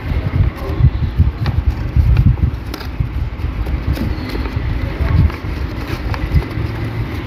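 Sheet of paper being folded and creased by hand, with faint crackles and clicks, over a louder uneven low rumble.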